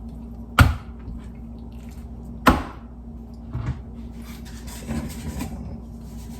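Two sharp knocks about two seconds apart, like hard objects set down on a counter while meat is handled and seasoned. A lighter knock and a brief rattle follow, with a steady low hum underneath.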